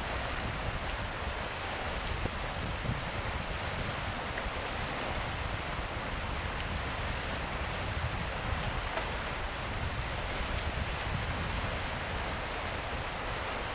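Ocean surf on a rocky coast: a steady rush of breaking and washing waves with small swells in loudness, mixed with wind.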